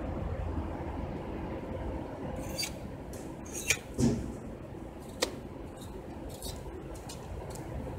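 Pet carriers' wire doors being unlatched and swung open: a few sharp metal clicks and rattles, the loudest with a dull knock about four seconds in.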